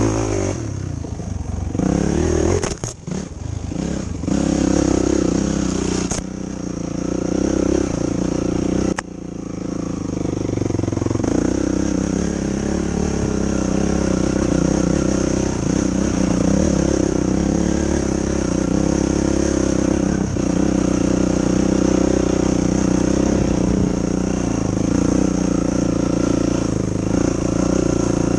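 Yamaha YFZ450 quad's single-cylinder four-stroke engine running under way. The throttle comes off and the engine sound drops and breaks up a few seconds in, then it picks up again and runs steadily.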